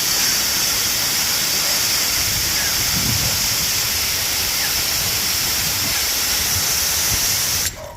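Garden hose spraying water in a steady loud hiss, giving the parrots a bath; the spray shuts off abruptly near the end.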